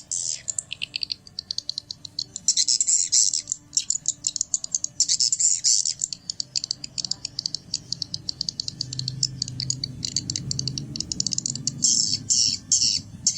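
Recorded swiftlet lure call (suara tarik) of the kind played to draw swiftlets into a nesting house: rapid, high-pitched chirping trills repeated many times a second, in runs with short breaks. A low hum sits underneath from about halfway through.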